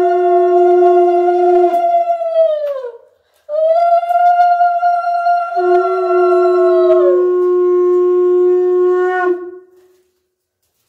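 Conch shell (shankha) blown in two long blasts. Each holds a steady note that jumps between a low and a higher tone, and the first sags in pitch as it dies away about three seconds in, before the second starts half a second later and ends about nine seconds in.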